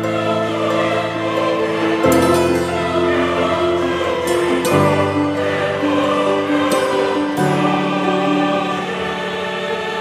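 Background music: slow, held chords with choir-like singing, the harmony changing every two to three seconds.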